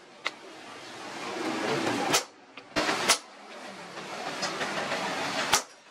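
Hammer blows on red-hot leaf-spring steel lying on an anvil: four sharp metallic strikes at uneven spacing, two of them close together in the middle. Between the blows a hissing background noise swells.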